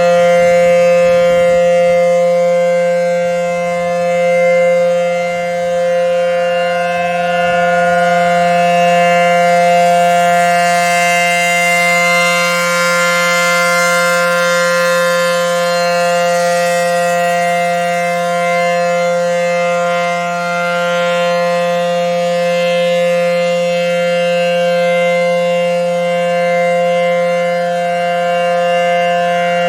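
ACA Howler outdoor warning siren sounding the Full Alert signal: a loud, steady, unwavering chord of several tones that does not rise or fall in pitch, swelling and easing only slightly in loudness.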